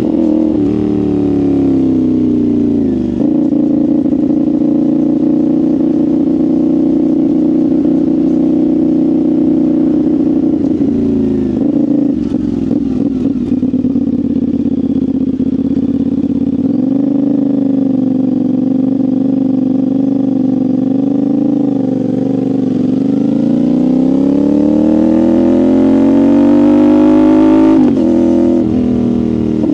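CFMoto 450SR's parallel-twin engine running on the road through its exhaust. The engine note falls over the first few seconds, holds steady at cruising revs for a long stretch, then climbs steadily under acceleration before dropping abruptly near the end.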